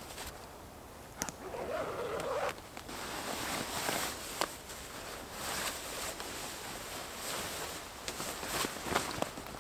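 Nylon gear rustling and scraping as a backpack is unpacked and a sleeping bag is pulled out, with a zipper and a few sharp clicks.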